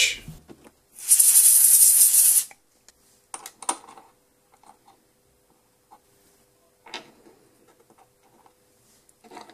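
A burst of blown air lasts about a second and a half, clearing chips away from the seat of the lathe's threading insert. A few light clicks follow as small parts are handled, over a faint steady hum.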